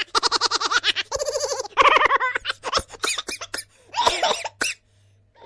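A run of laughter sound effects played back to back: several different recorded laughs, each a rapid string of ha-ha pulses, with a choppy stretch in the middle and a short pause near the end.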